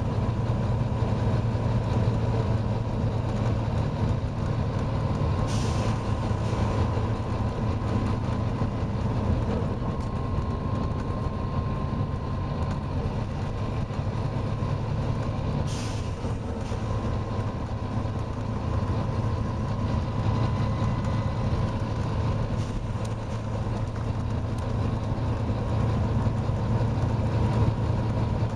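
A Volvo B9TL bus's six-cylinder diesel engine running steadily under load, heard on board, with a steady whine over it. Two short hisses of air, one about five seconds in and one about sixteen seconds in.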